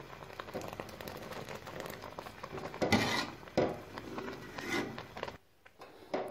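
Metal spoon stirring and scraping through thick rice kheer in a steel pot as it is cooked down thicker, with a few louder scrapes about three seconds in.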